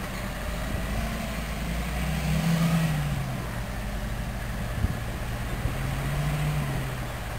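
John Deere 8530 tractor's six-cylinder diesel engine running under load while pulling a five-shank subsoiler through the ground. Its pitch rises and falls a little twice.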